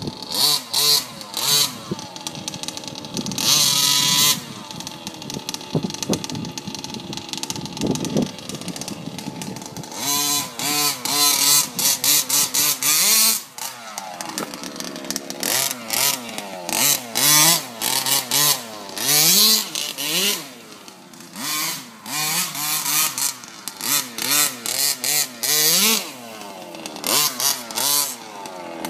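Small two-stroke gasoline engine of a 1/5-scale RC truck, revving up and down over and over in short surges as the truck is driven hard, with bursts of rushing hiss between the revs.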